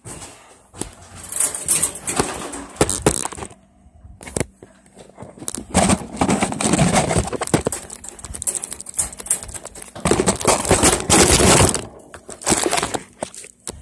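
Close handling noise: fingers rubbing and scraping over the phone's microphone in irregular crackling bursts, with brief pauses.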